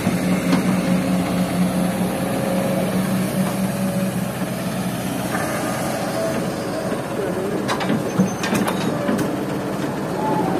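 Kobelco hydraulic excavator's diesel engine running steadily under load as it digs sand and swings to load a dump truck, with a few sharp knocks about eight seconds in.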